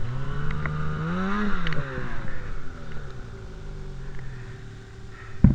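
Snowmobile engine running, revving up about a second in, then easing back to a lower steady run. A single sharp thump near the end.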